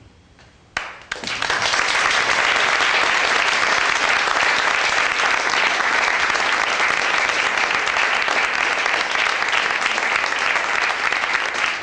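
Audience applauding. The applause breaks out suddenly about a second in and carries on, loud and steady.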